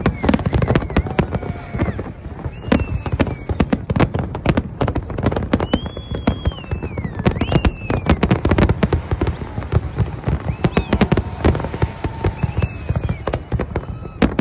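A fireworks display: a rapid, continuous barrage of bangs and crackles over a deep rumble, with crowd voices and high gliding shouts or whistles heard over it now and then.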